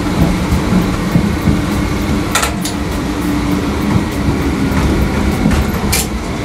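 Electric local train running and slowing under electro-pneumatic braking, heard from inside the driver's cab: a steady heavy rumble with a low hum, and a few brief sharp sounds about two and a half and six seconds in.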